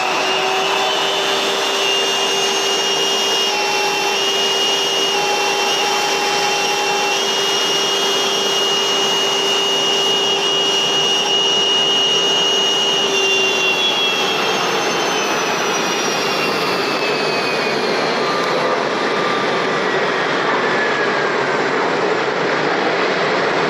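Jet airliner engines running with a loud, steady rushing noise and a high whine. About two-thirds of the way through, the whine begins to fall steadily in pitch.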